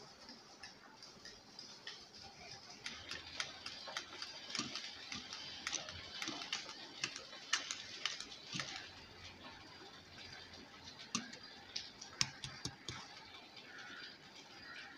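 Hand churner spun back and forth between the palms in a pot of curd, churning it into buttermilk. The churner gives quick, irregular clicking taps, busiest in the middle stretch, then thins out near the end.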